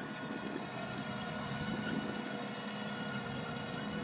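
Ropa Tiger 4 self-propelled sugar beet harvester at work: a steady engine and machinery noise with a few constant tones running through it.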